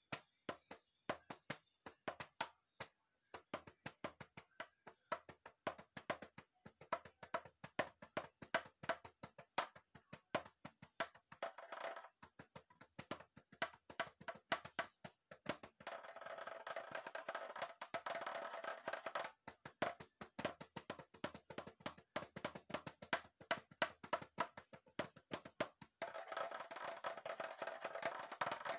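Homemade percussion instrument struck quickly with a stick: a fast, uneven run of sharp, wood-block-like taps, several a second. Twice, for about three seconds, the strokes run together into a continuous ringing roll.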